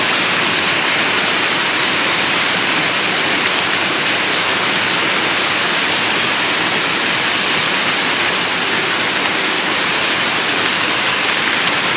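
Steady rain falling, an even hiss that holds at one level throughout, with a brief louder swish about seven seconds in.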